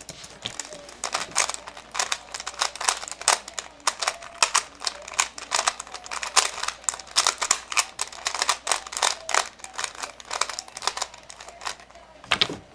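Rapid, irregular plastic clicking and clacking, several clicks a second.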